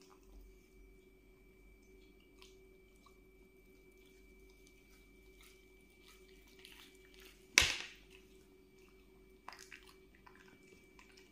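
A dog eating a piece of fried dory from a hand: faint mouth clicks and chewing, with one sharp, loud snap or knock about seven and a half seconds in and a few smaller clicks shortly after.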